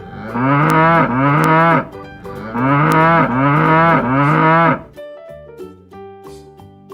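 Cow mooing: two long, wavering moos, then soft background music from about five seconds in.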